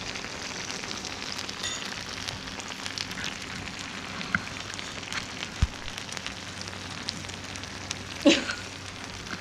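Hamburg steak in sauce sizzling on a hot cast-iron plate: a steady hiss with many small crackles and pops. A short louder sound comes near the end.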